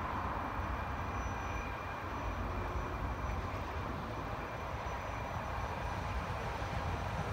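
Electric locomotive approaching slowly on the station track, heard as a steady distant rumble with a faint high whine.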